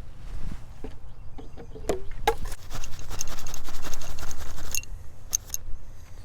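A few small handling clicks, then about two seconds of rapid fine scratching from steel wool being worked on a brass-plated belt buckle, followed by a couple more clicks.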